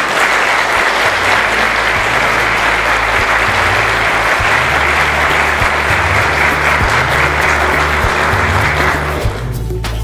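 Audience applauding in a large hall: sustained clapping that fades out about nine seconds in, with music coming in quietly underneath.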